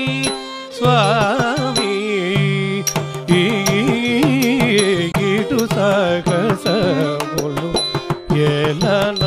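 Carnatic music for a javali in raga Saindhavi, Adi tala: a singer's melody with wavering, gliding ornaments over a steady drone, with drum strokes marking the rhythm throughout.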